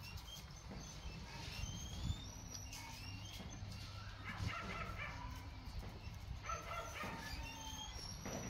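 Short, high, gliding chirps and whimpering, yipping animal calls, recurring, with two longer whimpering bouts around the middle.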